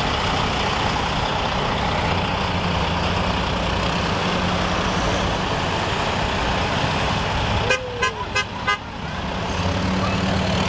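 Convoy of cars and pickup trucks driving past on a multi-lane road, engines and tyres running steadily. About three-quarters of the way through, a vehicle horn toots four times in quick succession.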